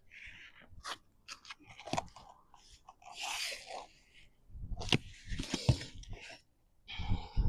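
Old roof shingles crunching and scraping as they are worked loose and handled, with sharp clicks and knocks and a few dull thumps.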